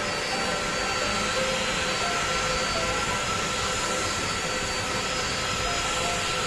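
Jet airliner engines running steadily, a constant rushing noise with a thin, steady high whine.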